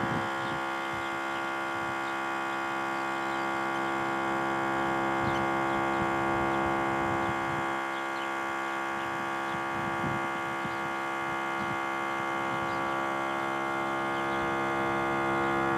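Viking jump pack's built-in tire-inflator compressor running steadily, a constant electric hum with many overtones. It is pumping a tire up past 38 PSI, close to its automatic shut-off pressure.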